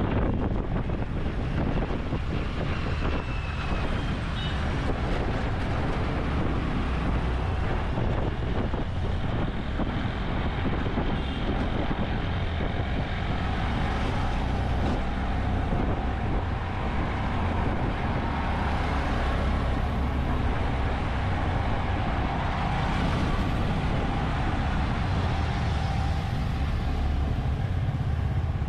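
Continuous road traffic noise on a city street, steady throughout.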